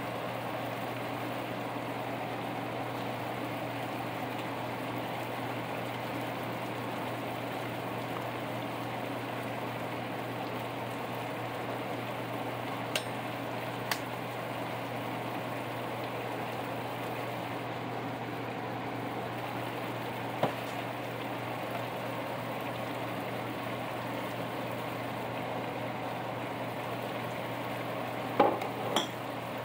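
Chicken in sauce simmering and sizzling in a frying pan, bubbling steadily, with a lidded pot boiling beside it. A steady low hum runs underneath. A few sharp pops stand out: two a second apart just before halfway, one later, and a couple near the end.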